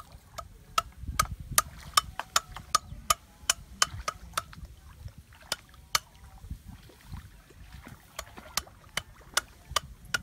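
Shallow muddy water sloshing around legs wading through a flooded rice paddy. Over it runs a string of sharp clicks, about three a second for the first four seconds, then sparser.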